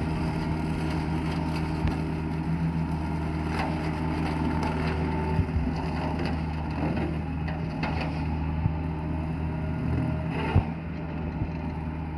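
Kubota excavator's diesel engine running steadily while brush is cut and broken, with scattered sharp cracks of snapping wood. The loudest snap comes about ten and a half seconds in.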